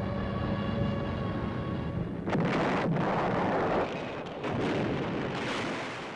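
A diving aircraft's steady high whine, cut off about two seconds in by bomb explosions, heavy rumbling blasts, with a second run of blasts in the last couple of seconds.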